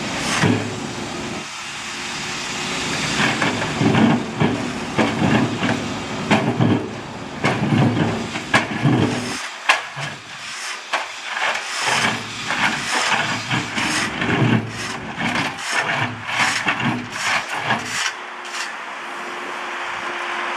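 Backhoe loader at work: machine noise with irregular clanks and rattles, the sharp knocks coming thick and fast in the second half.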